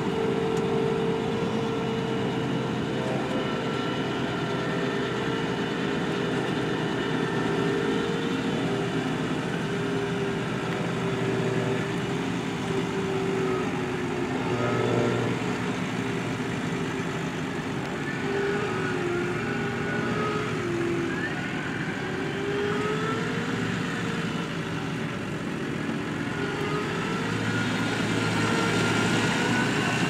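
New Holland T7.270 tractor's six-cylinder diesel engine running under load while pulling a mounted reversible plough, its note rising and falling several times.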